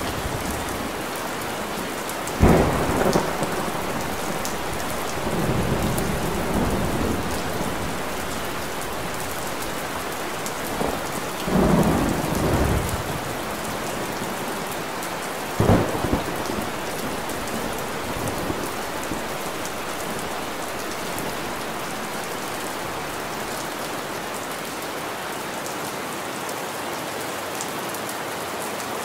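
Steady rain falling, with a few short, loud low rumbles rising out of it about two, twelve and sixteen seconds in.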